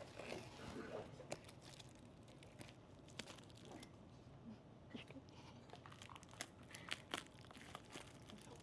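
Faint scattered crinkling and rustling of plastic packaging, with small clicks and knocks, as bags of electronic parts are handled.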